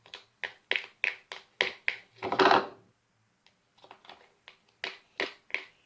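Spoon stirring slime in a mixing bowl: a run of quick taps and clicks, about three a second, with one louder, longer noise about two and a half seconds in.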